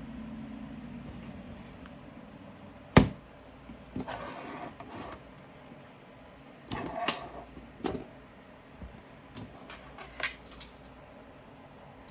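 A sharp click, then scraping and rustling with a second click and several small ticks: small hard objects being handled by hand.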